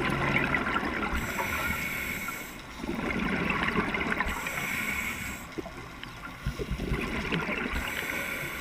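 Scuba breathing heard through the underwater camera: hissing regulator breaths and gurgling exhaled bubbles, repeating about every three seconds.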